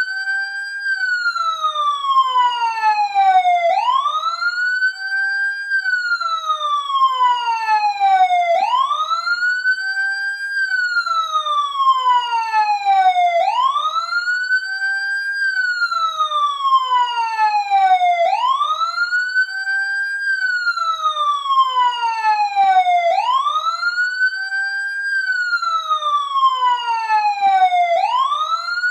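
Police siren wailing: each cycle is a quick rise in pitch followed by a long, slow fall, repeating about every five seconds.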